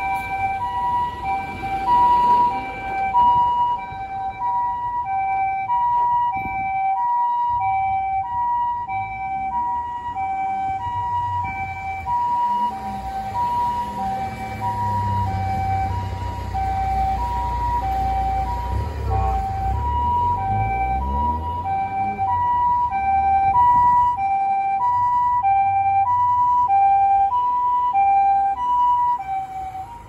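Japanese ambulance's two-tone electronic siren, alternating steadily between a higher and a lower note, louder in the last several seconds as it draws near. Under it is the low rumble of car engines in slow traffic, strongest midway.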